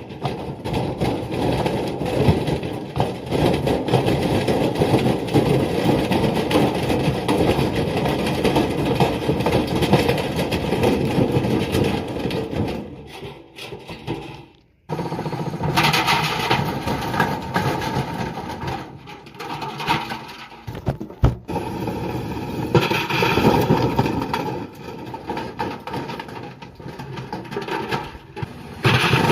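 Beko washing machine running with a loud, dense rattle. The sound drops out briefly about halfway through, then returns less steady, rising and falling.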